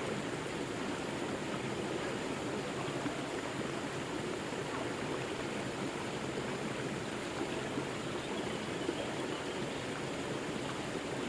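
A forest river flowing over rocks: a steady rush of running water.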